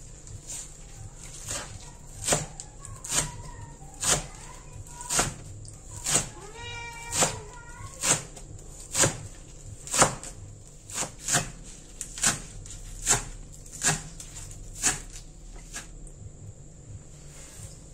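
Large kitchen knife chopping spring onions on a wooden cutting board, a sharp knock about once a second. A cat meows a few times between about three and eight seconds in.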